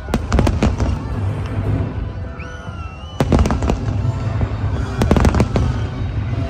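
Aerial fireworks shells bursting in rapid volleys over a continuous low rumble. The bangs come in clusters: at the start, about three seconds in, and about five seconds in.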